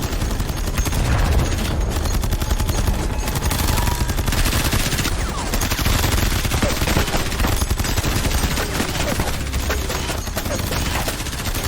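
Heavy gunfire: many guns firing rapid shots without a break.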